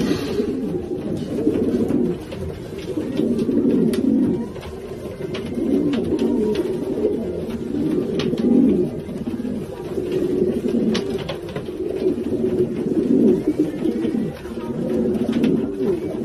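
Many racing pigeons cooing at once in overlapping, continuous calls, with occasional light clicks among them.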